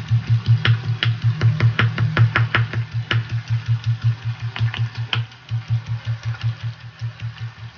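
Stone pestle pounding dried anchovies and spice paste in a stone mortar: sharp knocks about three a second, pausing for about a second midway, over a steady low pulsing hum.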